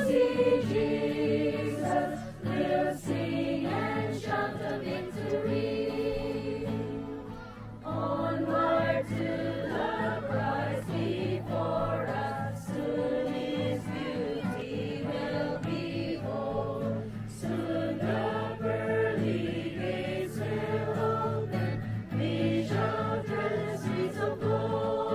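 A group of people singing a hymn together.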